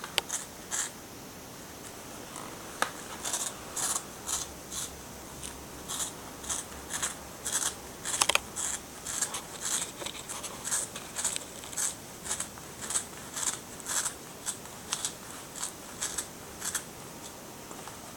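A cat rasping at a scratching pad dusted with silvervine powder: short, scratchy strokes, a few at first, then a steady run of about two a second that stops near the end.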